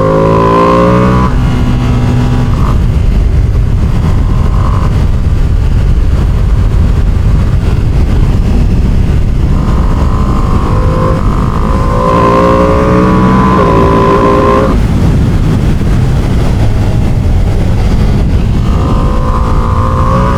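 Ducati Panigale sport bike engine and exhaust running hard under way. The pitch climbs in stepped pulls near the start and again about twelve seconds in, as the engine is revved up through the gears.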